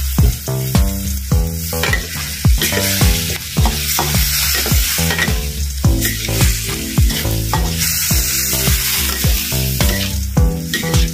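Ground pork and onion-flower stalks sizzling in a wok while a metal spatula stirs and scrapes them, over background music with a steady beat.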